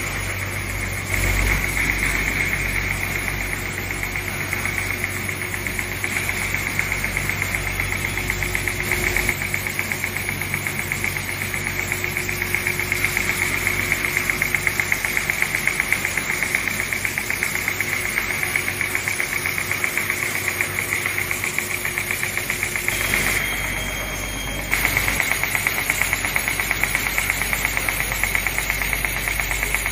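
A carton folder gluer running: a steady mechanical din of belts and rollers with a fast, even pulse.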